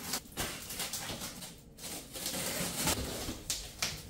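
Large cardboard shipping box being opened by hand: the top flaps are pulled and folded back, with irregular cardboard rustling and a few short knocks.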